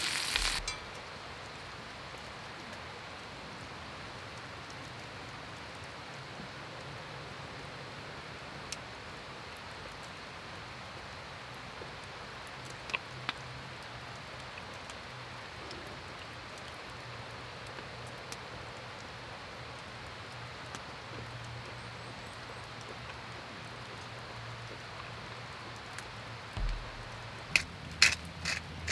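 A pan's frying sizzle cuts off within the first second, leaving a steady, even hiss of forest ambience with a few faint scattered clicks. Near the end comes a quick run of sharp clicks and knocks.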